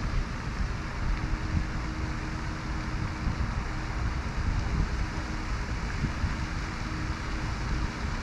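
Wind buffeting the microphone: an uneven low rumble over a steady outdoor background hiss.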